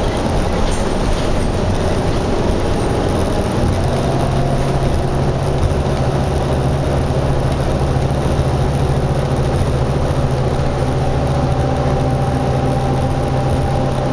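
Motor vehicle engine running steadily: a low drone over a noise haze, with a fainter higher whine. The drone grows stronger about four seconds in.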